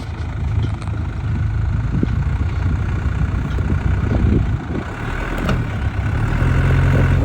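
Off-road vehicle's engine running at low revs while it crawls through a trail obstacle, rising and easing slightly, with a couple of faint knocks.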